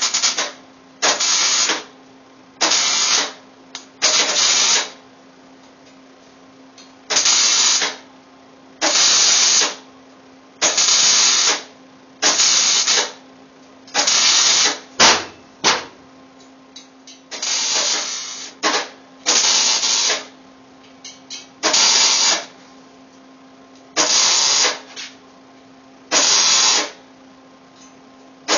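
MIG welder stitch-welding a steel exhaust header in about fifteen short bursts, each under a second, with pauses of a second or two between them. A steady low hum runs underneath.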